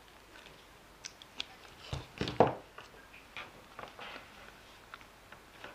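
Quiet clicks and knocks of hands handling small electronics on a bench, the loudest a pair about two seconds in as a battery lead is plugged into a flight controller.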